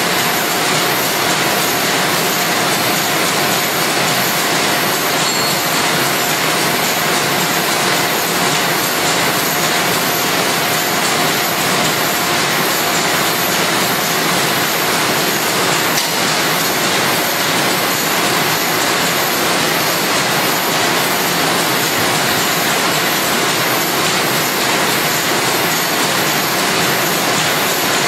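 Automatic pocket envelope making machine running steadily: a dense, even mechanical noise with a constant tone and a fast, regular ticking on top.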